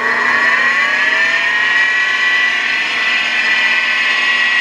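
Jet mini lathe driven by a brushed treadmill DC motor on an SCR speed control, spinning up toward 2600 RPM. Its whine rises in pitch and levels off about two seconds in, then holds steady.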